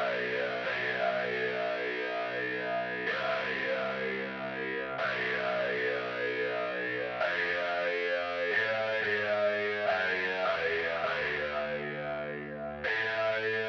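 Heavier7Strings virtual seven-string electric guitar playing held notes through a wavering, chorus-like effect. The notes change about every two seconds at first, then more often near the end.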